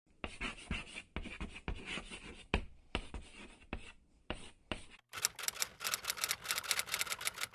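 Chalk scratching on a chalkboard in short, uneven strokes, like handwriting. About five seconds in it gives way to a quicker, brighter run of even clicks, about eight a second, like typewriter keys.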